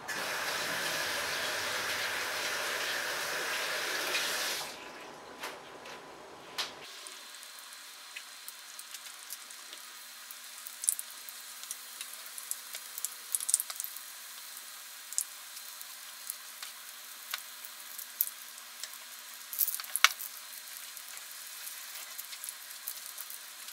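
Egg-battered stuffed tortillas frying in hot oil in a pan. A steady, louder sizzle for the first four to five seconds, then a quieter sizzle with scattered pops and crackles.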